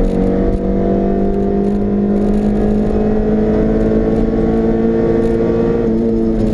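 Honda CRX's four-cylinder engine heard from inside the cabin, pulling steadily under acceleration with its note rising slowly as the car gains speed, over wind and tyre noise.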